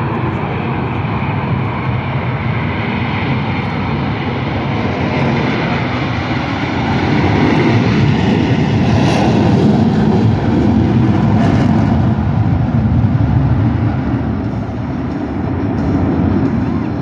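Four Boeing F/A-18 Super Hornet jets taking off together in diamond formation on afterburner: a loud, continuous jet roar that swells about seven seconds in and eases a little near the end.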